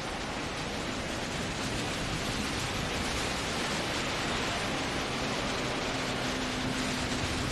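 Steady hiss of rain, growing slightly louder, with a faint low steady hum coming in near the end.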